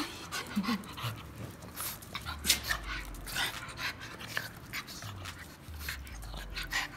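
An excited pug panting and snuffling close up, in quick short breaths.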